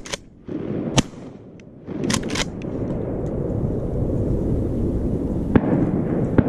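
Shotgun fired from a kayak: a sharp shot about a second in, with clicks of the action around two seconds in, followed by a steady low rushing noise.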